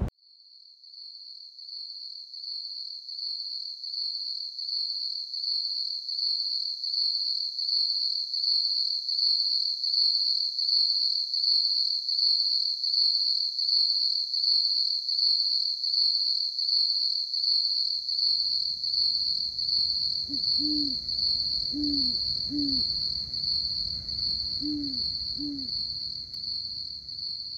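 Night insects trilling steadily in a high-pitched, pulsing chorus. Near the end an owl hoots six times in pairs of short notes, over a faint low rumble.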